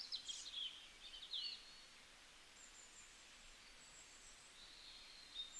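Faint, high-pitched bird chirps: a cluster of quick twittering calls in the first second and a half, then a few thinner calls later on.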